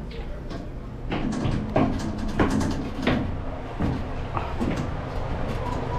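Footsteps climbing a steep steel ship's ladder, each step a ringing knock on the metal treads, about every two-thirds of a second, over a steady low hum.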